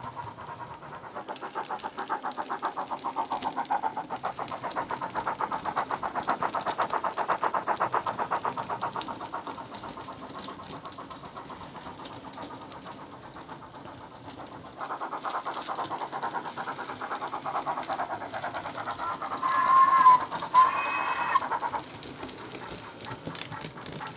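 Sound from a LokSound micro decoder in a Bachmann Ivatt Class 2 model steam locomotive, played through a thin flat speaker: a fast, even steam-exhaust chuff as the loco runs, growing louder and then fading. About twenty seconds in, a short whistle sounds, the loudest part.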